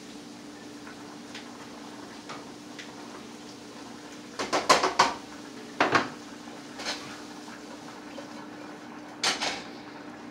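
Metal kitchen utensils clattering against cookware and a cutting board: a quick run of clacks about four and a half seconds in, then single knocks near six, seven and nine seconds, over a steady low hum.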